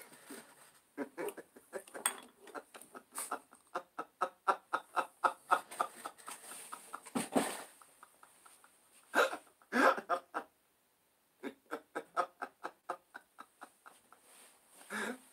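Recorded sound-effect laughter: runs of quick, rhythmic 'ha-ha' pulses, with a few louder bursts about halfway through and a brief silent gap before more rapid laughing.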